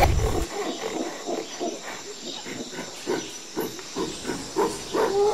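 Gorilla sound effect: a quick run of short grunts, several a second.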